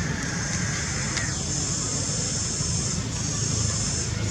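Outdoor background noise: a steady high-pitched drone over a low rumble, with a faint tone that slides down and stops about a second in.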